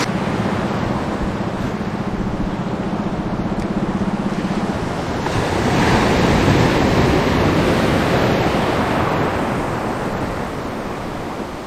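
Sea waves washing with wind on the microphone, swelling louder about six seconds in, over a faint steady low hum that fades out about five seconds in.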